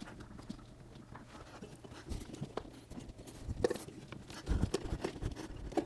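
Scattered faint knocks, clicks and rubbing as a rubber heater hose is fished through the engine bay and worked into place at the heater core tube.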